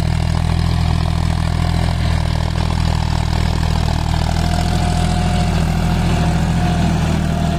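John Deere 5050D tractor's three-cylinder diesel engine running steadily under load while pulling a mouldboard plough. A faint thin whine joins about halfway through.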